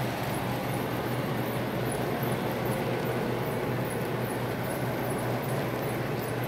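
O-scale model auto rack cars rolling past on three-rail track, giving a steady rumble of metal wheels on rail with a faint, regular high ticking.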